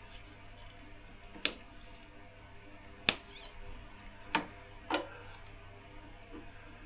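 Four sharp, short clicks and taps of hand work on motorcycle wiring, a second or so apart, over a faint steady hum.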